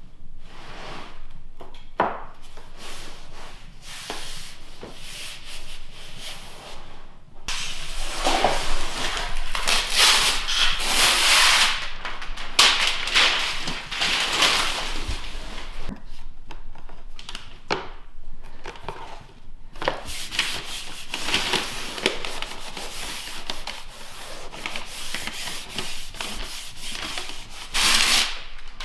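Repeated rubbing and scraping strokes on a floor surface, coming in uneven stretches and loudest about a third of the way in and again near the end.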